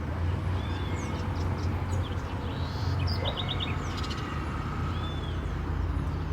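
Small birds chirping: short high calls and arched whistles, with a quick run of four notes about three seconds in, over a steady low rumble.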